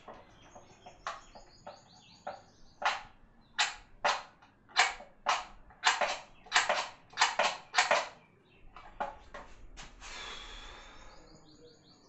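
A light switch on a wall switchboard being flicked repeatedly: a string of sharp, irregular clicks, thickest in the middle. Short high bird chirps come at the start and near the end, and a brief hiss with a falling whistle comes about ten seconds in.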